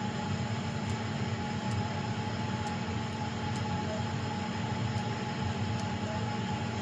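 Steady machine hum and hiss with a constant whine that does not change: the sound of running machinery.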